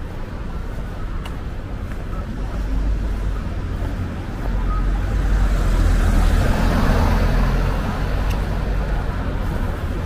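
Road traffic: a vehicle passes close by over a steady low rumble, its engine and tyre noise swelling to a peak about six to seven seconds in, then fading.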